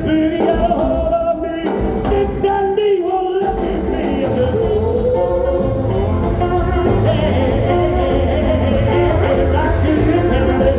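Live rock and roll band playing, with a singing voice over guitar, bass and drums. The low end drops out for a moment about two seconds in, then the full band comes back in.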